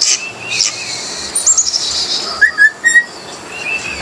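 Coleto (Sarcops calvus) calling: sharp clicks, then a quick string of short high squeaky notes and a few brief whistled notes.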